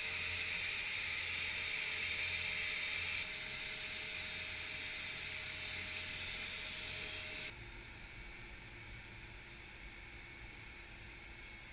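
Twin turboprop engines of a CC-115 Buffalo transport aircraft running with a steady rushing noise and a high whine. The level drops abruptly about three seconds in and again past seven seconds.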